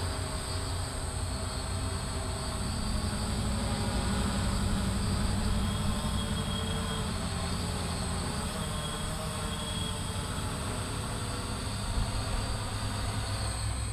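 Hexacopter with six Sunnysky brushless motors and 13x6.5 carbon-fibre props, hovering and drifting overhead in flight: a steady multi-tone drone over a low rumble, swelling a little a few seconds in and easing back.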